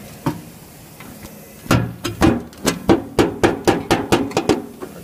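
A quick, regular run of about a dozen sharp knocks, some four a second, starting about two seconds in, after a single knock near the start.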